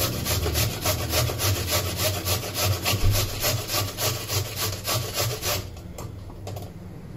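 Peeled carrot being coarsely grated on a stainless-steel box grater: quick, even scraping strokes, about five a second, which stop about five and a half seconds in.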